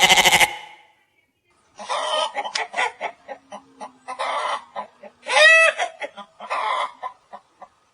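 The end of a sheep's bleat, then after a short pause chickens clucking in quick runs, with one louder drawn-out call a little past halfway.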